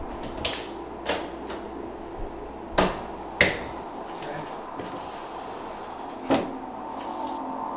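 Handling noise: about five sharp clicks and knocks, the two loudest about half a second apart near the middle, over a steady low hum, as a phone and a plastic selfie-stick clamp are picked up and handled on a wooden bedside table.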